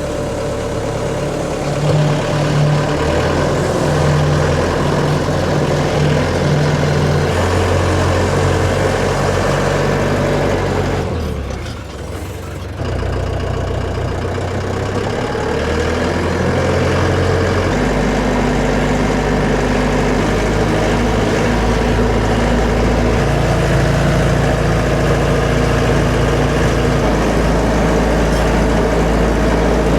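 A motor-driven machine running steadily and loudly, its pitch shifting in steps; it drops away about eleven seconds in and comes back abruptly about thirteen seconds in.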